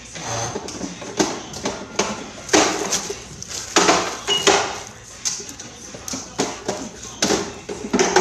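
Irregular sharp knocks, taps and clatter of kitchen items being handled and put away on the counters.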